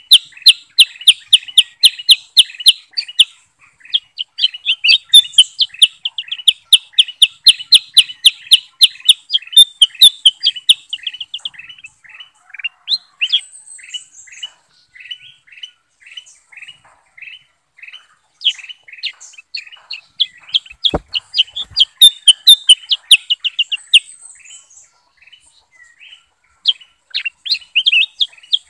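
Bulbuls, the kutilang emas and kutilang sutra, singing: fast runs of sharp chirping notes, several a second, with a slower, spaced-out stretch in the middle and a short lull near the end.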